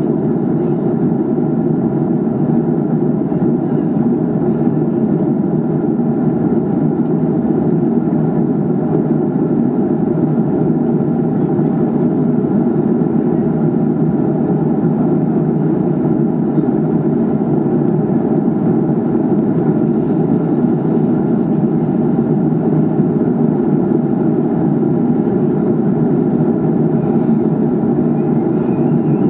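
Steady in-flight cabin noise of an Airbus A300-600R: a constant deep drone of jet engines and airflow past the fuselage, heard from a window seat, with no change in pitch or level.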